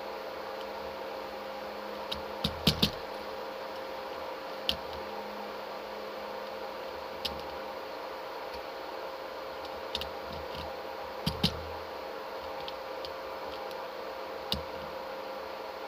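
A steady mechanical hum with a dozen or so scattered sharp clicks and knocks, a few close together about two and a half seconds in.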